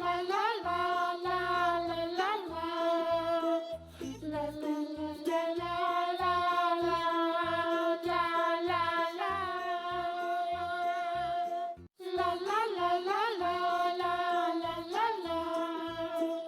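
Background song: a high singing voice holding long, gliding notes over a light beat, breaking off briefly about twelve seconds in.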